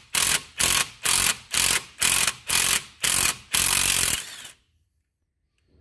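Impact wrench with an 18mm socket undoing a strut bolt, hammering in short bursts about two a second, then one longer burst that stops about four and a half seconds in.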